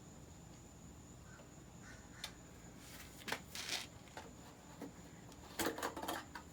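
Faint handling noises from work on a mini bike's engine: a click, short rustling scrapes, and a louder cluster of knocks and rattles about five and a half seconds in.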